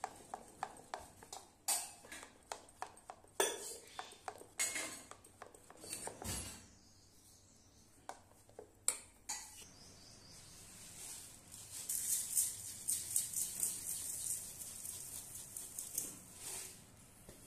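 A whisk scraping and clicking against the sides of a steel bowl as thick batter is beaten, in quick irregular strokes. After a quieter pause, granulated sugar pours into a steel pan from about eleven seconds in, making a dense high rattle that stops near the end.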